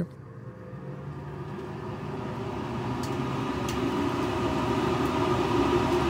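Inline duct vent fan running and steadily speeding up as its speed controller is turned up, with a steady hum and air rushing through the ducting. Two faint ticks come about three seconds in.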